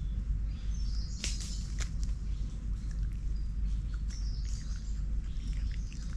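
Dry leaf litter crackling in short bursts as a lemur moves about close to the microphone, with high bird chirps in the background. A steady low rumble runs underneath.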